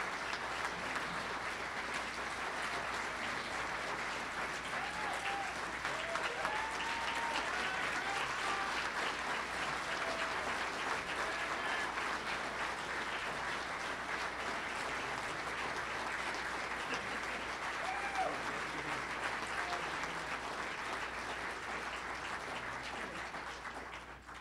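Audience applauding at length, a dense steady clapping with a few brief calls from the crowd, dying away near the end.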